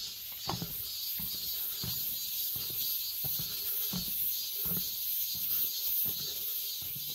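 Footsteps of a walker on a forest trail, a soft low thud about every 0.7 seconds, over a steady high hiss of outdoor ambience.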